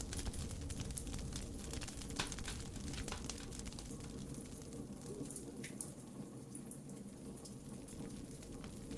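Campfire crackling: scattered sharp pops and snaps over a steady low rumble of burning wood.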